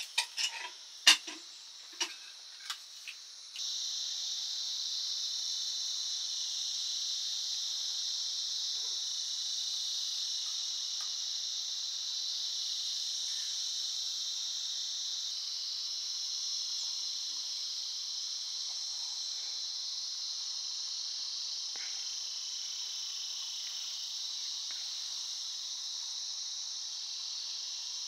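A few sharp clinks of spoons against steel plates and pots, the loudest about a second in. Then, starting abruptly about three and a half seconds in, a steady high-pitched insect chorus.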